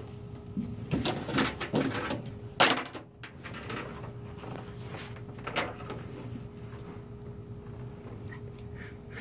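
A few scattered knocks and clatters of small objects being handled, most in the first three seconds and one more about halfway through, over a steady faint hum.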